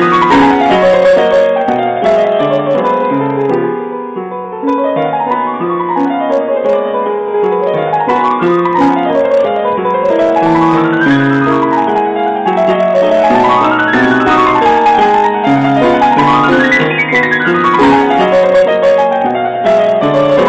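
Steinway & Sons upright piano played in fast runs that sweep up and down the keyboard over a steady bass figure, briefly softer about four seconds in.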